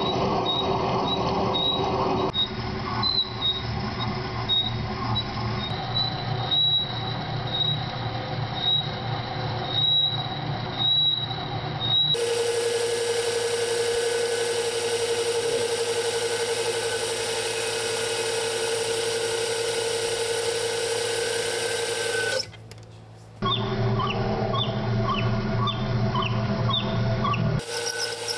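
Vertical milling machine cutting a keyway into a propeller shaft with an end mill: the cutter runs with a high, chirping squeal that repeats every half second or so. About halfway through the sound turns steadier with a single held tone, then drops out briefly for about a second before the chirping cut comes back.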